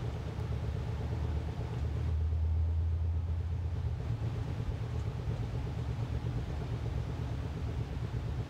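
A steady low rumbling hum that swells a little about two to four seconds in.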